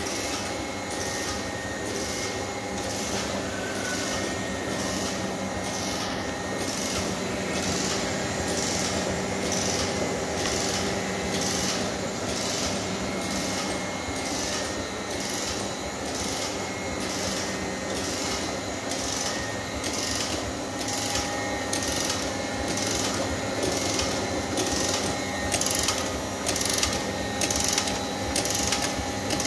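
Hikari label printing machine running, a steady mechanical hum with a regular clatter roughly twice a second as the label web is fed through.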